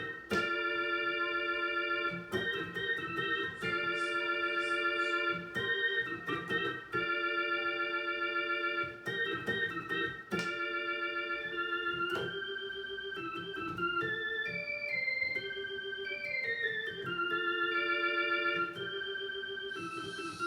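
Yamaha YC-20 combo organ played through a Marshall guitar amplifier: held chords and a melody line with a wavering vibrato, the notes changing every second or so.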